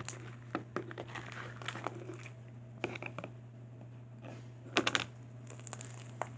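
Sticky, half-activated fluffy slime being kneaded and pulled by hand, giving irregular wet squelches and clicks, with a cluster of louder ones about five seconds in, over a steady low hum.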